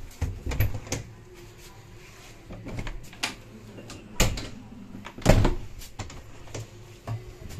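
Train toilet door being handled: clicks and knocks from its lever handle and latch as the hinged door is opened and shut, with the loudest thud a little past five seconds in.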